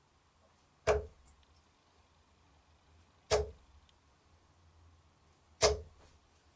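Three Darryl Fitton steel-tip darts thrown one after another and landing in a dartboard, each a single sharp thud, roughly two and a half seconds apart.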